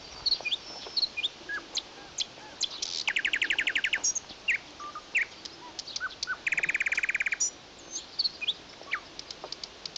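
Songbirds chirping, with many short high calls and two rapid trills of about a second each, one about three seconds in and one about six and a half seconds in.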